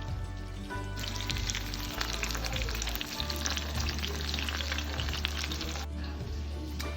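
Thin chicken cutlets frying in a pan, sizzling and crackling from about a second in until about six seconds, with background music underneath.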